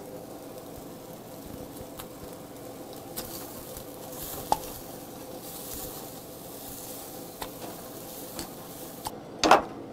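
Marinated pork ribs sizzling on a charcoal grill grate, with a few light clicks of metal tongs. A short, loud vocal sound from the eater comes near the end.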